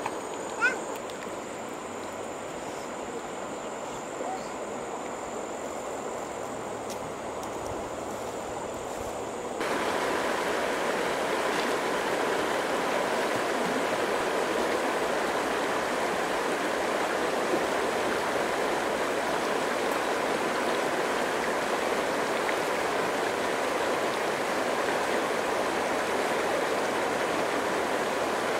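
Shallow river flowing fast over stones: a steady rushing of water. It is fainter for about the first ten seconds, then turns suddenly louder and fuller.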